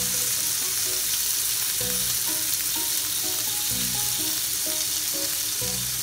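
Slices of beef sizzling in oil in a frying pan, a steady hiss throughout. Light background music with short melody notes and a beat about once a second plays underneath.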